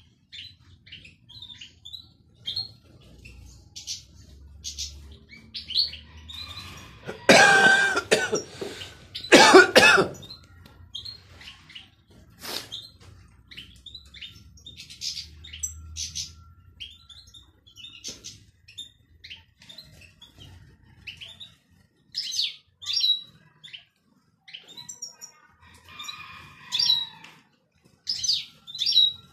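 European goldfinches in an aviary twittering in short, high chirps. Two much louder, harsh sounds come about seven and nine and a half seconds in.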